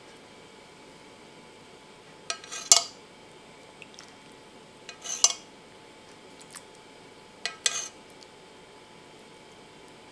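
Metal spoon clinking and scraping against a ceramic plate as sauce is spooned over food, three short bursts about two and a half seconds apart, with a few faint ticks in between.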